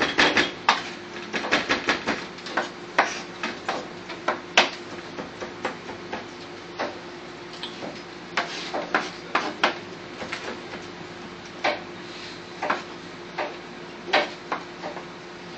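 A chef's knife finely chopping salmon on a plastic cutting board: a fast run of taps at the start, then scattered single taps. A steady low hum runs underneath.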